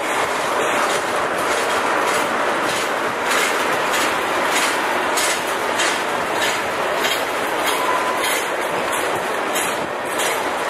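Freight train tank cars rolling past close by: a steady noise of steel wheels on rail, with clicks that keep repeating as the wheels pass over rail joints.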